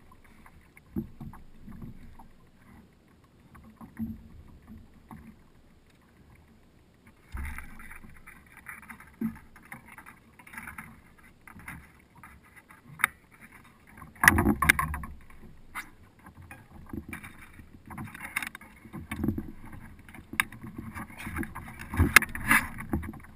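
Splashing water and knocks against a plastic kayak as a hooked wahoo is brought alongside and gaffed aboard. The first seven seconds are fairly quiet. Then come scattered sharp knocks and splashes, the loudest burst about fourteen seconds in, with more near the end.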